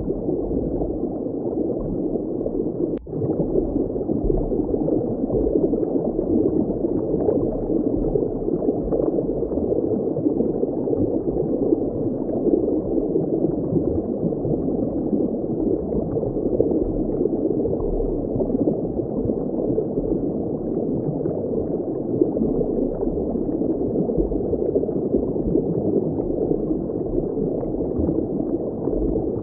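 Muffled underwater water ambience: a steady, low rush of moving water with nothing high-pitched in it, broken by a brief dropout about three seconds in.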